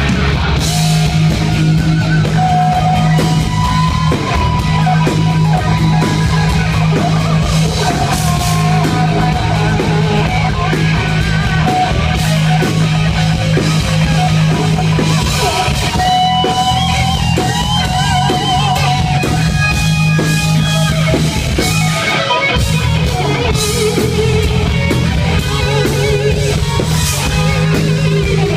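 Live heavy metal band playing loud: an electric guitar lead with wavering, vibrato-laden notes over steady bass and drums.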